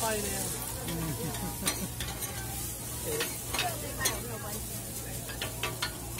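Shredded potato hash browns sizzling on a hot flat-top griddle. Metal spatulas click and scrape against the griddle plate several times, loudest about four seconds in.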